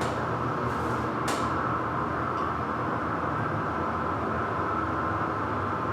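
Schindler 300A hydraulic elevator cab travelling, with a steady hum from the hydraulic drive and ride, and a couple of faint clicks about a second in.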